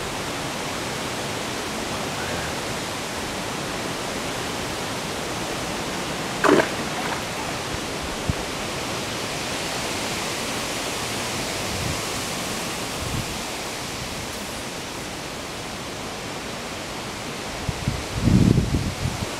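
Steady rush of flowing creek water. About six and a half seconds in there is one brief sharp sound, and near the end a louder low rumble.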